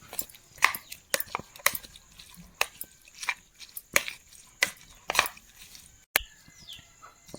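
Knife chopping food on a board: sharp, irregular knocks about two a second, ending with one sharp click about six seconds in.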